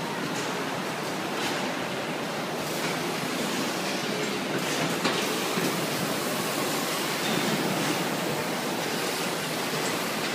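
Steady, even machinery noise of a packaging plant around a carton palletizer, with a few faint knocks.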